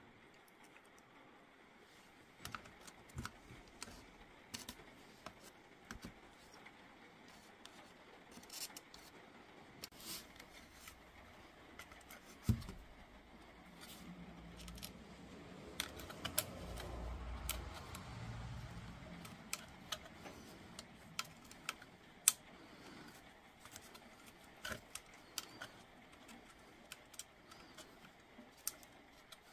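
Scattered small clicks and taps from handling an opened Makita 18V battery pack's plastic housing and replacement circuit board, with a sharper knock about twelve seconds in and another about ten seconds later. A faint low rumble sits under the clicks for several seconds in the middle.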